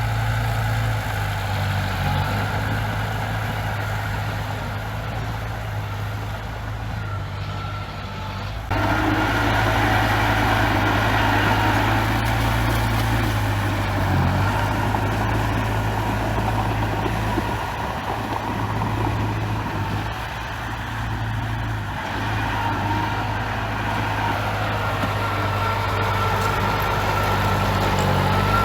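Heavy diesel engine of a bulldozer running steadily, getting suddenly louder about nine seconds in.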